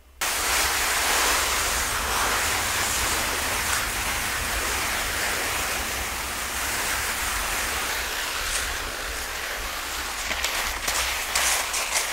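Steady rushing noise of wind on the microphone and skis running fast over firm, crusted snow on a downhill run. It starts suddenly, and crackling clicks come in near the end.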